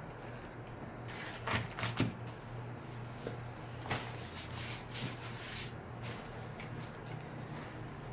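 Packaging handled by hand during unboxing: plastic wrap and paper rustling and crinkling, with a few sharper crackles about a second and a half to two seconds in and again around four and five seconds.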